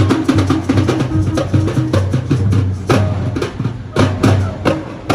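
Drum-led percussion music with a fast, busy beat that thins out to a few separate heavy strokes over the last two seconds.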